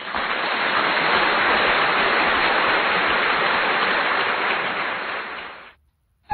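A steady, even rushing hiss with no pitch to it that fades out about five and a half seconds in.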